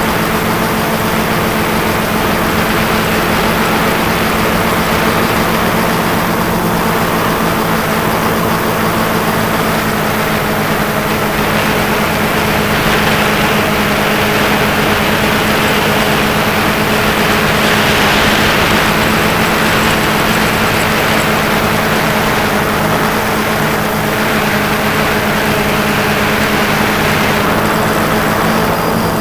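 Quadcopter drone's motors and propellers humming steadily, heard from the drone's own camera, with a rushing noise over it that swells and fades several times.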